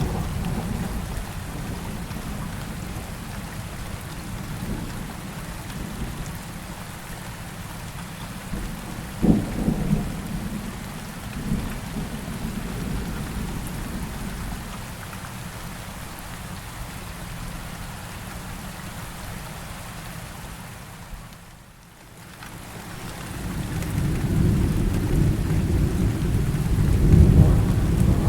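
Steady rain with low rolling thunder. A sharp thunderclap comes about nine seconds in; the sound almost fades away a little past twenty seconds, then swells back into a loud rumble near the end.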